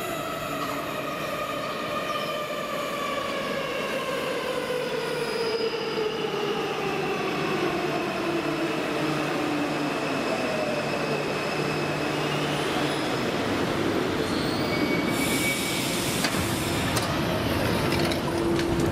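Warsaw Metro train arriving at the platform: its motors whine in several tones that fall steadily in pitch as it brakes to a stop over about thirteen seconds. A hiss starts about fifteen seconds in, with a few clicks near the end.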